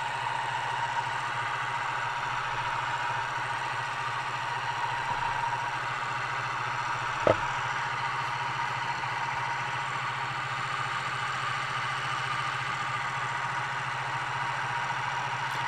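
Small electric motor of a Rollie Pollie rotating-magnet separator running steadily, spinning the magnet under a plastic gold pan. One light tap on the pan comes about halfway through.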